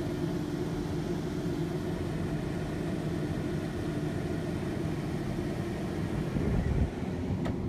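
Steady engine hum inside a tour bus, with low droning tones under a constant haze. A short, louder low rumble comes about six and a half seconds in.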